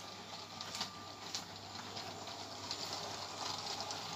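Lego train running on its plastic track, faint, with scattered light clicks of the wheels over the track.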